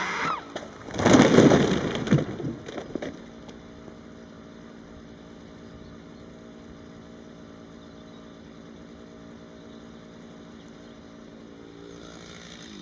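A large ash tree crashing to the ground about a second in, a loud rush of impact and breaking branches that dies away within about two seconds. Then a chainsaw idles steadily until it is switched off at the very end.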